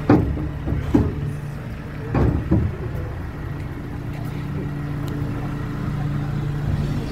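Small river ferry's engine running with a steady low hum. A few knocks and thumps come in the first three seconds.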